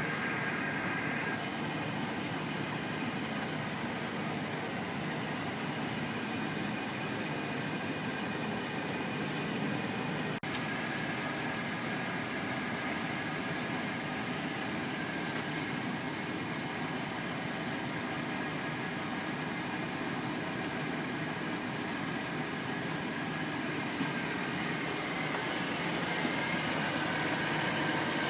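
An engine idling steadily, with a constant high whine over it; it grows slightly louder near the end.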